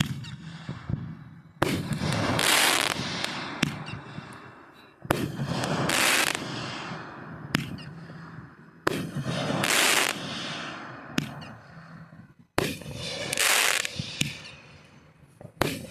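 Fireworks going off: four sharp bangs about every three and a half seconds, each followed by a crackling hiss that fades over a second or two.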